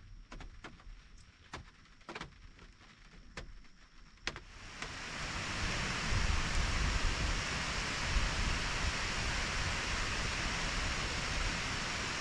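Scattered sharp ticks for the first few seconds, then from about five seconds in a steady, heavy hiss of rain falling.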